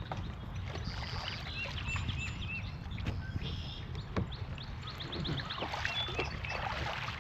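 Kayak paddling on a river: steady water rumble with a couple of sharp knocks of the paddle or boat. Songbirds call over it: a run of four arched chirps early on, then a quick trill about five seconds in.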